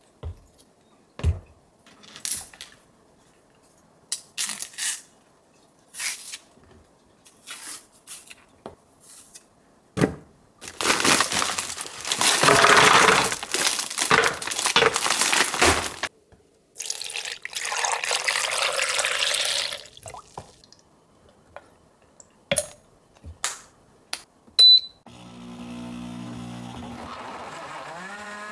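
Kitchen tap running into the sink in two spells of several seconds each, among short clinks and knocks of kitchenware. Near the end a small electric appliance motor starts and runs with a steady hum.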